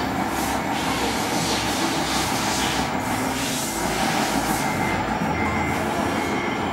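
Radio-controlled Scania model truck running: a steady mechanical vehicle noise.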